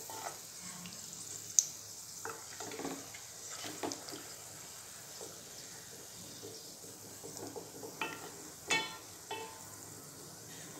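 Wooden spatula stirring coconut-milk payasam in a stainless steel pot, the liquid swishing with soft scrapes and a sharp tap against the pot about one and a half seconds in, over a steady faint hiss.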